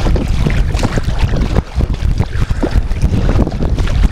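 Wind buffeting the microphone, a loud rumble that rises and falls in gusts, over the slap and lapping of small waves against a kayak's hull.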